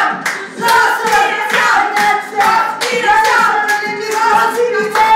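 Women singing together with steady rhythmic hand clapping, about three claps a second.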